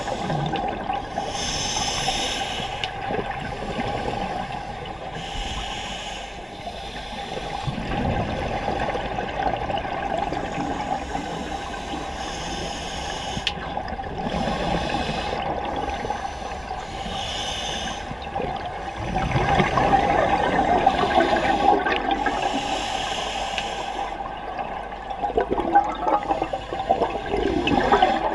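Scuba regulator breathing underwater: a hiss on each inhale every three to four seconds, and the bubbling of the exhaled air, over a steady hum.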